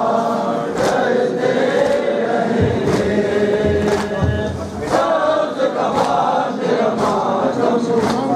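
A crowd of men chanting a nauha in unison, punctuated by a sharp slap about once a second from rhythmic chest-beating (matam).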